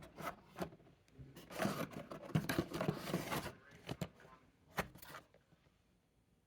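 Packaging being handled and opened by hand: a few sharp clicks, then about two seconds of dense scraping and tearing, then more clicks before it falls quiet near the end.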